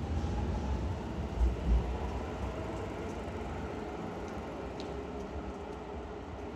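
Keio Line electric commuter train pulling out of a station platform: a rumble of wheels with a faint motor whine, fading as it moves away.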